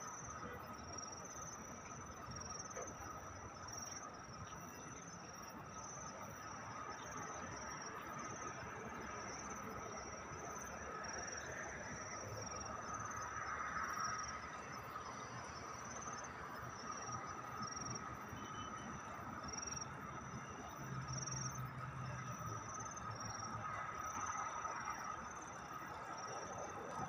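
Crickets chirping at night: a faint, high-pitched, steady run of short chirps repeating about once a second, over a low, even background hum.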